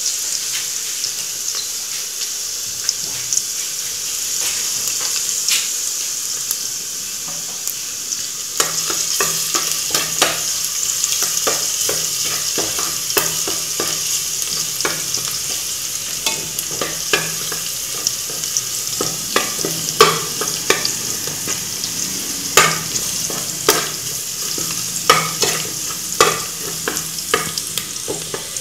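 Chopped garlic sizzling in hot oil in a metal pot, a steady hiss, while a ladle stirs it; from about eight seconds in the ladle knocks and scrapes against the pot again and again. The garlic is being fried golden as the aderezo, the base of the sauce.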